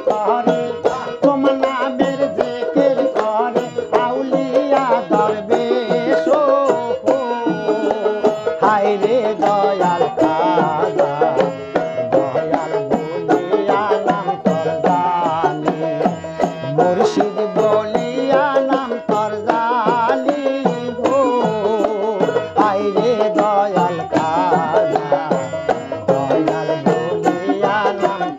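Bengali folk song: a man sings over a small two-headed hand drum beating a quick, steady rhythm and a long-necked plucked string lute.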